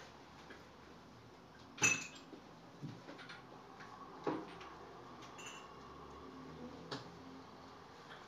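Scattered clinks and knocks of small hard objects being handled. The loudest comes about two seconds in with a brief ring, and a few lighter ones follow, near four and seven seconds.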